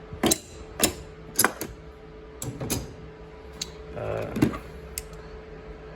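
Metal pliers being handled and set down in a toolbox drawer: a string of sharp, irregular clicks and clinks, with a softer knock about four seconds in, over a faint steady hum.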